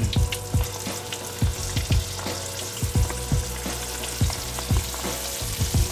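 Bacon rolls deep-frying in hot oil in a wok, a steady sizzle with frequent pops from the oil.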